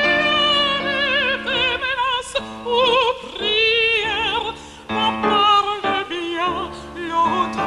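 Operatic singing with a wide vibrato on long held notes, over a sustained accompaniment.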